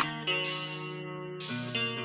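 Background music beat: sustained guitar-like notes, with a sharp hit twice, about once a second.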